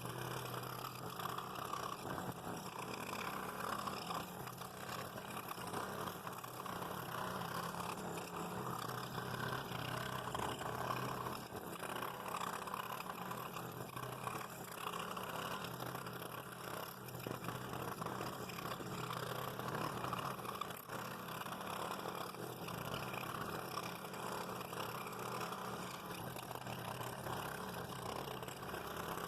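A small machine running steadily with a constant low hum.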